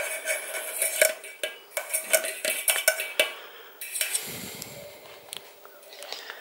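Stainless steel saucepan clinking against a metal mesh sieve while milk is strained: a quick run of sharp metallic taps with a short ring, easing off about four seconds in.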